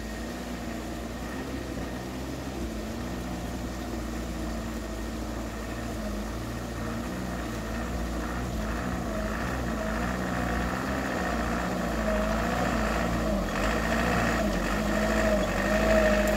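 Isuzu Elf minibus's diesel engine running at low speed as it approaches over a rough stone track, growing steadily louder, its pitch wavering up and down with the throttle.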